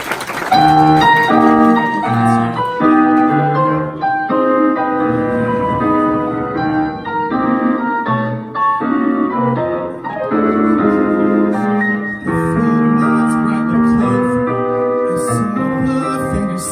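Recorded piano music starts about half a second in, playing a song's introduction: chords and a melody with no singing.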